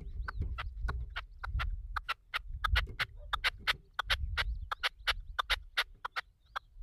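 Red-legged partridge calling a rapid run of short, sharp clucking notes, about four to five a second, with gusts of wind rumbling on the microphone.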